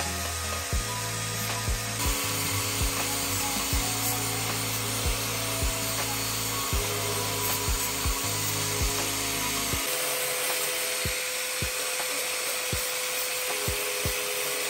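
Angle grinder with an abrasive disc grinding against the steel teeth of a hand saw, a steady harsh hiss. Background music with a steady beat, about one thump a second, plays along with it; its low sustained notes drop out about two-thirds of the way through.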